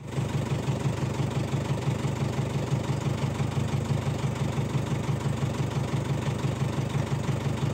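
Vehicle engine idling, a steady low sound with an even, rapid pulse.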